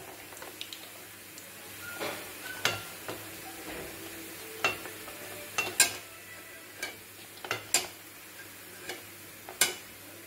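Achu murukku frying in hot oil in an iron kadai, a steady sizzle, with the metal achu murukku mould knocking against the pan about nine times.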